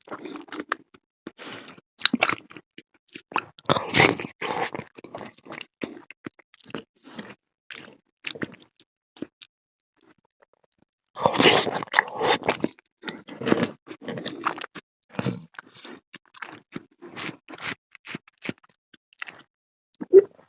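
Close-up chewing and crunching of a mouthful of fruit salad with cheese, wet smacking bites coming in clusters, with a short pause about halfway through.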